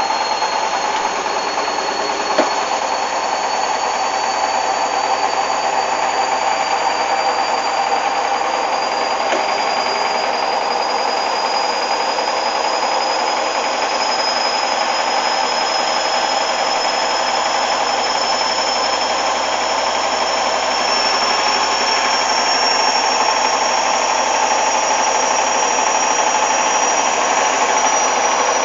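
Hoover Dynamic washing machine spinning, its motor whine climbing slowly and steadily in pitch as the drum gathers speed. A single click comes about two seconds in.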